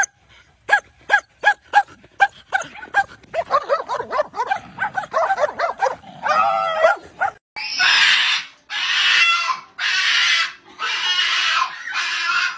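A dog barking in short sharp barks, about two a second, then whining in wavering cries. After a break, a cat yowls loudly in drawn-out cries, about one a second, so dog-like that it is taken for barking.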